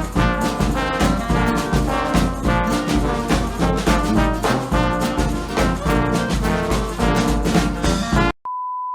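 Brass-led music with trombone and trumpet over a driving beat, cut off abruptly near the end, followed by a steady, high-pitched beep tone.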